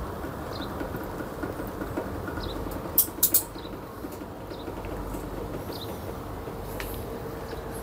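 A 120 cm mini roll heat-transfer press running, its heated drum and rollers turning fabric and sublimation paper with a steady mechanical rumble and a faint hum. Three sharp clicks come close together about three seconds in.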